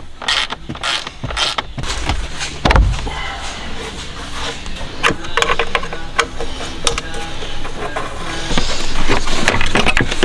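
Background boom-bap hip-hop beat, with knocks and a heavy low thump about three seconds in.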